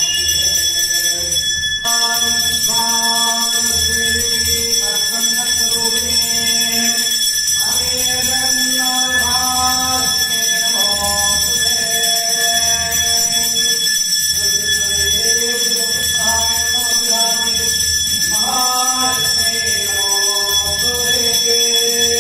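Temple bell rung continuously for the aarati, a steady metallic ringing, under voices singing a devotional aarati song.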